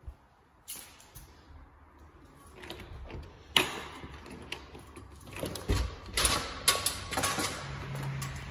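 Horizontal window blinds clicking and rattling as they are handled, a clattering run of sharp clicks that picks up from about three and a half seconds in.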